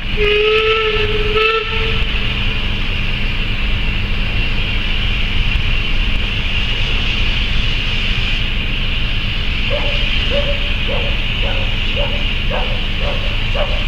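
A locomotive sounds a short, slightly rising whistle, then a train rumbles and hisses steadily. From about ten seconds in, a dog yaps repeatedly, about twice a second.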